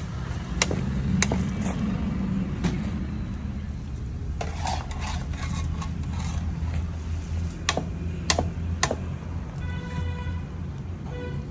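A metal slotted ladle scrapes and clinks against an iron kadhai and a steel bowl as fried okra is scooped out, in a string of sharp clicks over a steady low rumble. A brief high tone sounds near the end.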